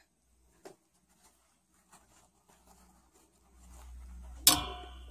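Faint scratching and small clicks of a steel crochet hook working brown yarn. Then a low handling rumble, and about four and a half seconds in one sharp knock with a short ringing tail.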